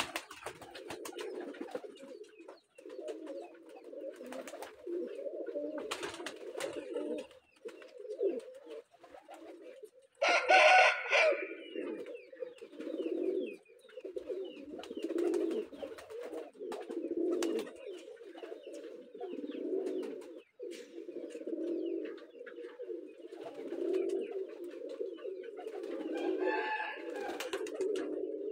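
Several domestic pigeons cooing steadily, their low coos overlapping and swelling every second or two. A brief, louder sharp sound breaks in about ten seconds in, and a fainter one comes near the end.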